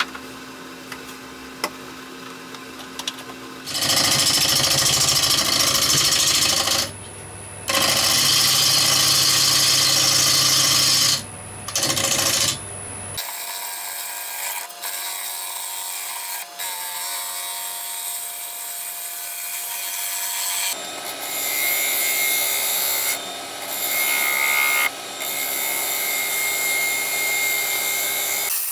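A gouge cutting a spinning striped walnut plate on a wood lathe: loud rasping passes of the tool against the wood, broken by short pauses. A quieter low steady hum comes before the first cut.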